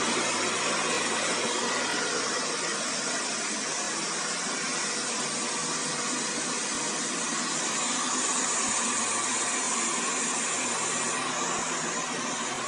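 Xiaomi Mi Robot Vacuum running: the steady whir of its suction fan and brushes, with a faint higher whine joining in about eight seconds in.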